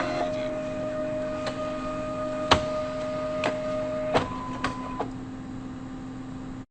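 Xerox photocopier running with a steady hum and whine, punctuated by several sharp mechanical clicks. After a loud click about four seconds in, the whine changes pitch, and the sound cuts off suddenly near the end.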